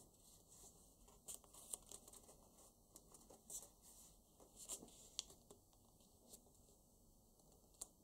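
Faint rustling of paper being folded and creased by hand, with a handful of short, sharp crinkles. The loudest crinkles come just under two seconds in and about five seconds in.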